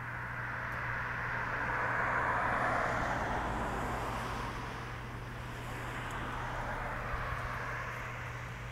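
Cars passing on a two-lane road: tyre and engine noise swells as one goes by about two to three seconds in, fades, then swells more gently again as a second car passes near the end.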